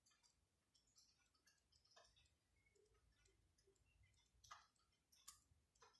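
Near silence with a few faint, short clicks of calculator keys being pressed, entering a division.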